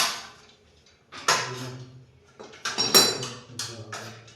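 Metal parts of a washing machine stand clanking and rattling as they are handled and fitted: a knock at the start, another about a second later, and a cluster of hits near three seconds in, the loudest ringing briefly.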